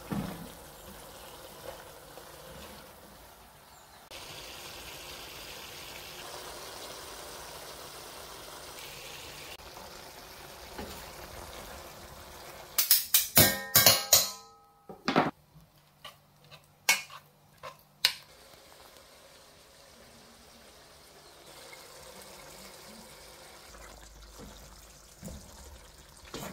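Sliced pork frying in a metal pot as it is stirred: a steady hiss. About halfway through comes a quick run of loud metallic clinks and taps with a brief ring, then a few single clicks, before a quieter hiss returns.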